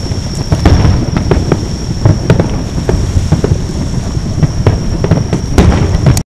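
Fireworks finale: a rapid barrage of aerial shells bursting, with many overlapping bangs, several a second, over a continuous low rumble.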